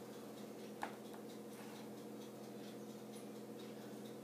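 A single light click of a metal teaspoon against a container about a second in, while ground cinnamon is spooned out, over a faint steady hum and a few faint ticks.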